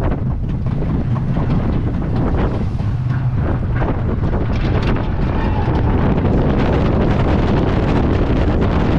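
Wind rushing over the microphone and the roller coaster train rumbling along its wooden track with steel Topper Track rails, a steady roar that grows a little louder in the second half as the train drops toward the structure.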